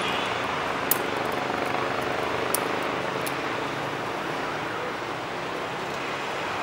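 Steady background hiss with a low engine-like hum, broken by three short sharp clicks in the first half.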